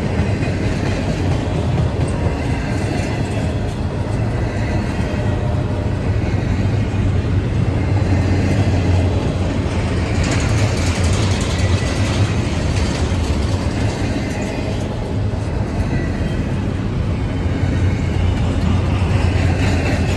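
Double-stack intermodal freight train rolling steadily past at trackside: a continuous loud rumble of steel wheels on rail, with faint high steady tones coming and going and a hissier stretch about halfway through.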